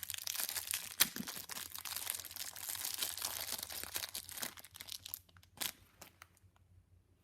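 A mochi squishy toy's plastic wrapper crinkling and tearing as it is opened by hand, with a couple of sharp snaps near the start; the rustling dies down after about five seconds to a few light clicks.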